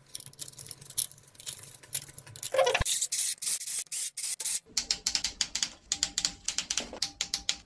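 Bolts of an oil filter/cooler housing being run in on an engine block: a cordless drill-driver spins for about two seconds, then a hand ratchet clicks rapidly and evenly as the bolts are tightened. Scattered light clicks of tool and bolt handling come first.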